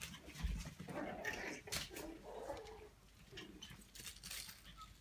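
Young puppies whimpering and yipping softly, mixed with clicks and rustles from the phone being handled; the sounds are busiest in the first half and fade toward the end.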